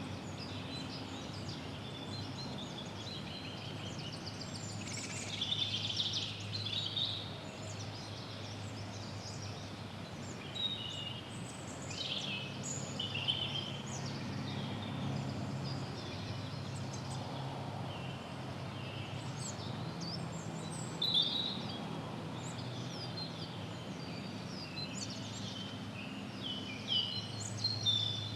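Early-spring woodland birdsong: several songbirds calling and singing in short, scattered phrases over a steady low background rumble.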